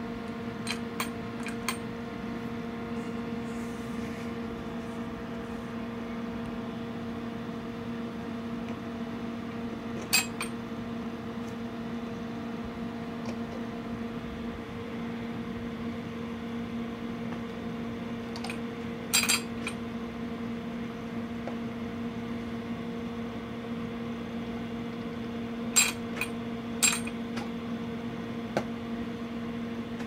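A steady, low-pitched electrical hum with overtones. A few short, sharp clicks stand out over it: about a third of the way in, around two-thirds of the way, and twice near the end.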